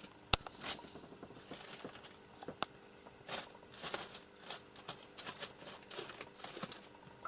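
Faint scattered rustling and light taps as a kitten scampers about on newspapers and cloth, with one sharp click about a third of a second in.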